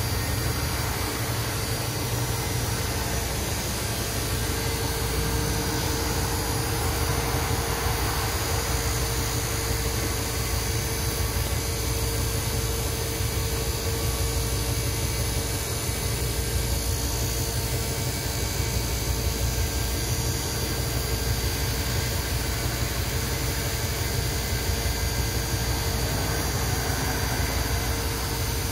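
Steady hum and noise inside the cab of a TECO Line streetcar, a constant tone over an even wash of noise with no sudden sounds.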